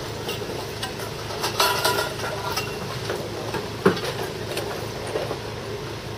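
A steady engine hum runs under scattered clicks and clatter of equipment being handled, with one sharp knock about four seconds in.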